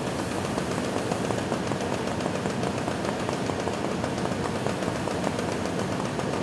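Box truck fire burning steadily: a continuous low roar of flames with faint crackling, fed by fuel from the ruptured tank.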